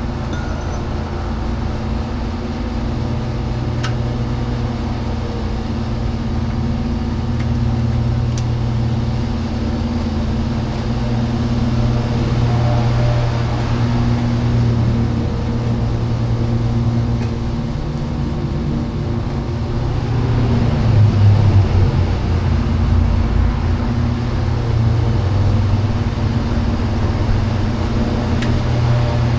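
A steady, low mechanical drone with a pitch that wavers, swelling briefly about twenty seconds in.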